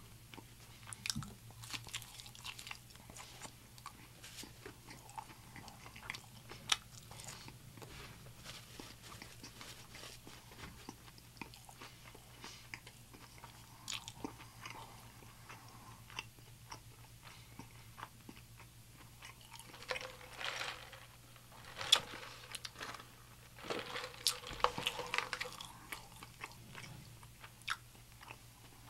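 Close-miked mukbang chewing and biting of crispy fried food: wet mouth clicks and crunches throughout, denser and louder around two thirds of the way in and again a little later, over a faint steady low hum.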